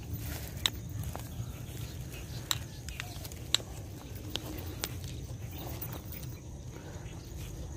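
Wind buffeting the microphone as a steady low rumble, with a few sharp clicks scattered through.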